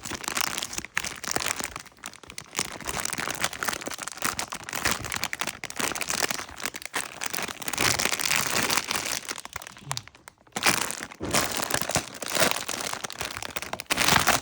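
Packaging crinkling and crackling as it is handled and unwrapped, with a short lull about ten seconds in.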